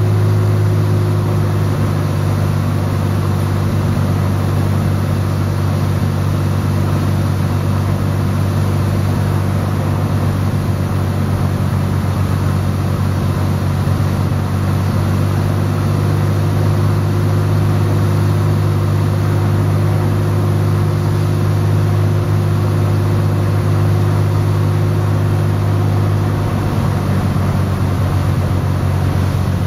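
Single-engine propeller aircraft's engine and propeller droning steadily, heard from inside the cabin, with a slight change in the drone near the end.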